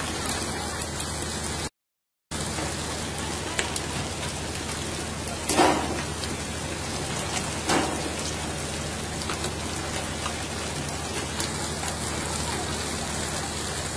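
Steady rain-like hiss of water spraying and rushing along the side of a pole-and-line tuna boat. A low hum runs underneath. The sound cuts out for about half a second near two seconds in, and there are two brief louder hits about two seconds apart a little after five seconds in.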